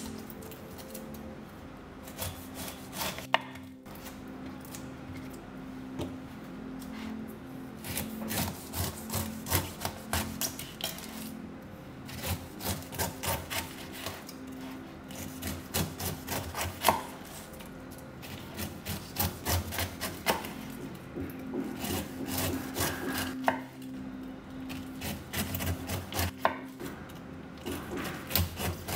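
A kitchen knife slicing the tough rind off a whole pineapple on a wooden chopping board: runs of quick, rasping cuts through the rind, with the blade knocking the board, broken by short pauses between strips.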